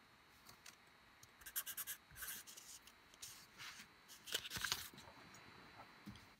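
Faint, intermittent scratching and rubbing, in short uneven strokes, like something being drawn or written on a surface.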